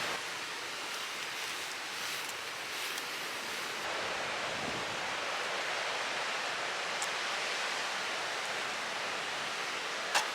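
Steady rushing of wind and surf on a beach, with one sharp click near the end.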